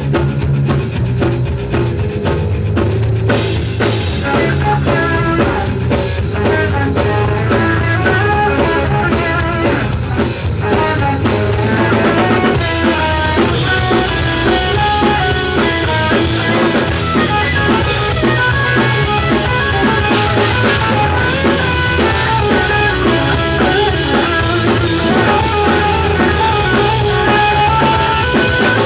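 Ska-punk band playing live, with a drum kit and electric guitar driving a steady beat and a melodic line that grows busier about halfway through.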